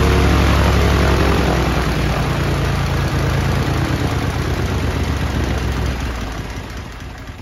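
Ryan Navion's 285 hp Continental IO-520-BB fuel-injected flat-six engine running at idle with the propeller turning. It drops in pitch about two seconds in, then fades toward the end as the engine is shut down and winds to a stop.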